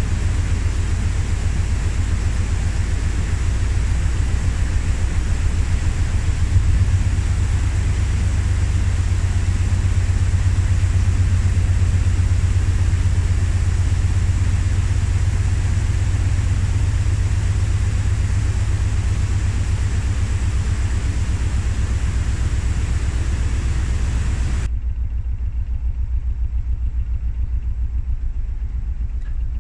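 A narrowboat's diesel engine running steadily with a deep low throb. A steady hiss lies over it and cuts off abruptly about 25 seconds in.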